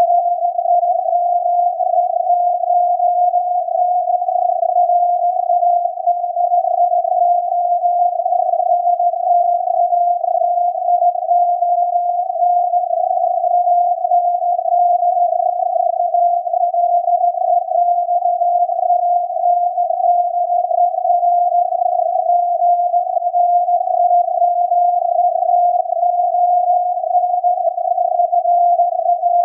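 VLF radio signal of SAQ, the Alexanderson alternator transmitter on 17.2 kHz, received on a software-defined radio and heard as a steady, slightly rough tone near 700 Hz over a hiss of filtered noise.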